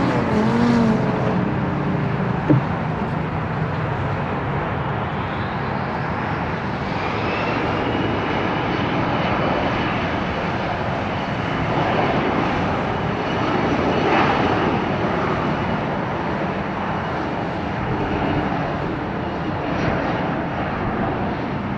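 Boeing 747-400's four Rolls-Royce RB211 turbofans running at takeoff power as the jet lifts off and climbs away: a steady jet noise with a high fan whine that rises about a third of the way in and then holds.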